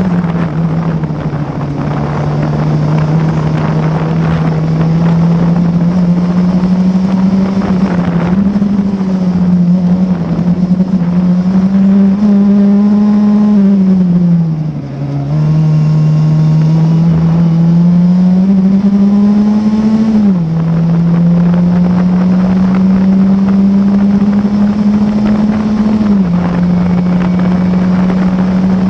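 Classic Formula Ford's 1600 cc Ford Kent four-cylinder engine at racing revs, heard from the cockpit: the note climbs through the gears and drops sharply at each upshift, about a second in and again around 8, 20 and 26 seconds. Around the middle it falls away as the driver lifts off for a corner, dips briefly, then pulls hard again.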